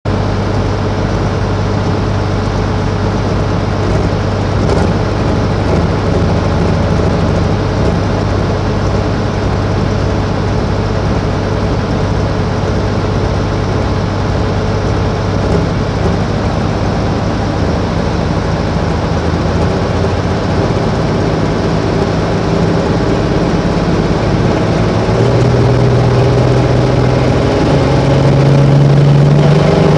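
Engine of a pulling vehicle running steadily at low revs, then climbing in pitch and getting louder over the last several seconds as it is revved up.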